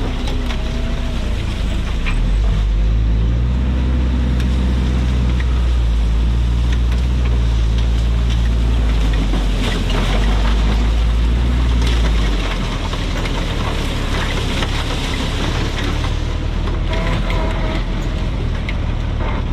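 Willys Jeep's four-cylinder engine running under steady load at low trail speed, easing off about twelve seconds in, with the occasional knock over rough ground.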